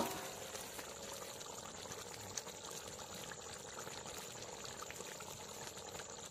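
Chicken curry simmering in a karahi: a faint, steady bubbling hiss with small scattered pops.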